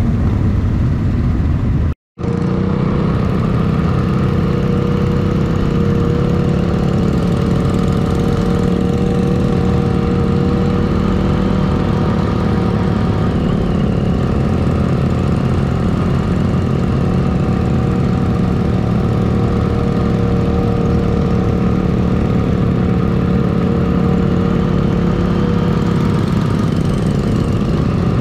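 Motorcycle engines running in a steady drone at an even pitch, cutting out for a moment about two seconds in.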